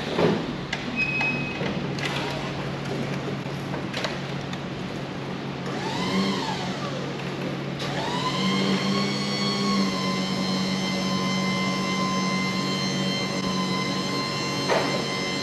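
Electric motor whine of an Upright aerial work platform, the kind that drives its hydraulic pump, over a steady low hum. About six seconds in the whine rises and falls once; from about eight seconds it glides up and holds at a steady high pitch.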